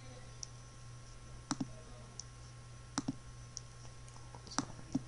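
A computer mouse clicking a few times, each click a quick double tick of button press and release, over a faint low steady hum.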